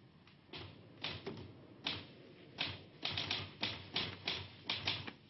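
Typewriter being typed on: irregular key strikes, a dozen or so, starting about half a second in and bunching into quick runs toward the end.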